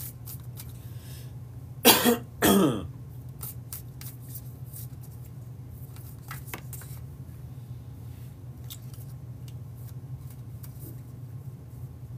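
A man coughs twice in quick succession about two seconds in, over the soft clicking of a tarot deck being shuffled in his hands and a steady low hum.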